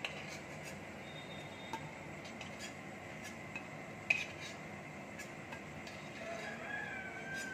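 Frying oil sizzling steadily in a kadai while fried fritters are lifted out with a metal spatula, which clinks against the pan a few times, loudest about four seconds in. A faint wavering tone comes in near the end.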